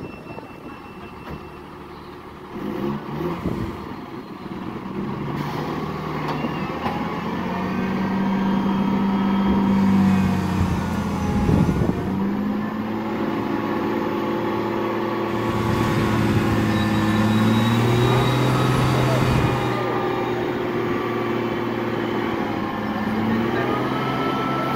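Heavy diesel engine running under load and revving, its pitch rising and falling; it grows louder a couple of seconds in and stays loud.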